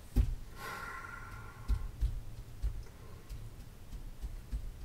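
Several soft, dull thumps and light knocks at irregular intervals, with a brief hiss-like rustle about half a second in: small handling and movement sounds of a person at a desk.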